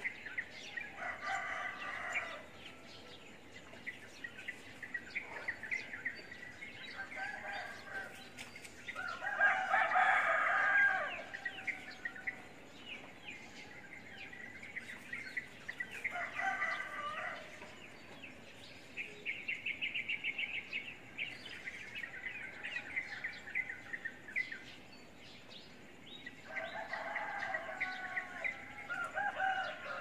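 Roosters crowing about four times, several seconds apart, the loudest a little under ten seconds in. Small birds chirp throughout, with a brief rapid trill about two-thirds of the way through.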